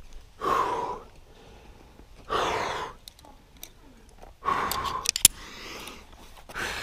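A rock climber's hard effort breaths while leading a difficult sport route: four loud, forceful exhalations about two seconds apart. A few sharp clicks fall between them, the loudest just after the third breath.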